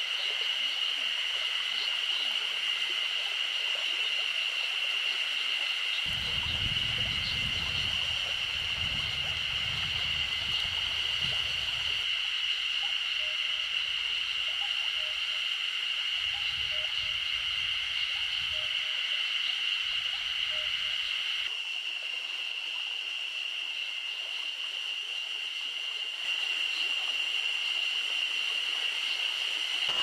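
Chorus of Ezo spring cicadas (Terpnosia nigricosta): a steady, high, noisy buzz, loud enough to drown out birdsong. A low rumble comes and goes twice in the middle.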